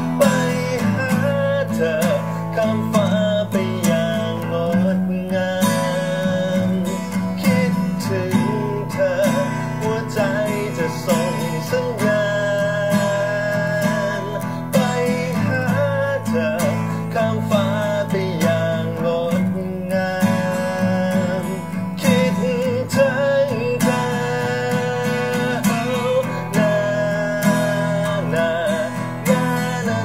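Live acoustic pop song: strummed acoustic guitar chords with a wavering sung melody over them.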